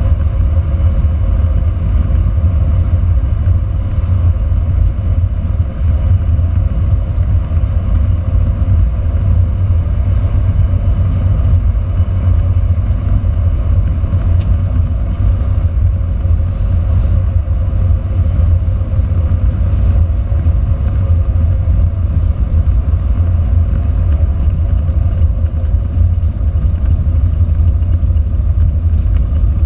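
Cessna 172's piston engine and propeller running steadily, heard from inside the cockpit as a loud, even drone.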